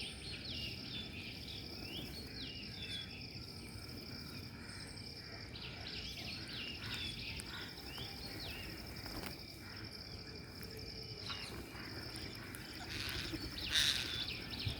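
A steady high insect drone, like cicadas or crickets, runs under repeated short, quick chirping bird calls that come in two runs. There is a louder burst of sound near the end.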